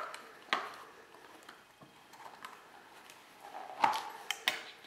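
Hard plastic cover being pushed onto a TV aerial's dipole terminal box. There are a few sharp clicks and knocks, one about half a second in and a quick cluster near the end, with faint handling rustle between.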